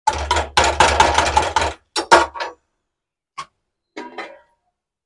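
Steel slotted spoon scraping and pressing potato filling against a steel kadai in quick strokes for nearly two seconds. A few lighter knocks follow, then a short metallic clink about four seconds in as the spoon is set down on the stove.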